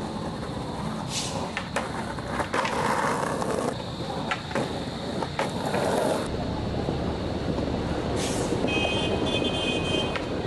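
Skateboard wheels rolling on concrete, with several sharp clacks of boards striking the ground, over the steady noise of traffic. A high-pitched beeping comes near the end.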